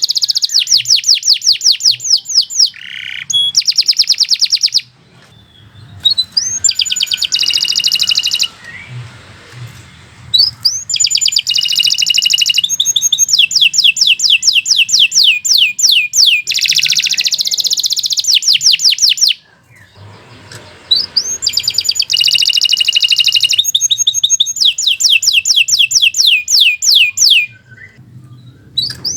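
Domestic canary singing long phrases of rapid, repeated trilled notes, with short pauses between phrases.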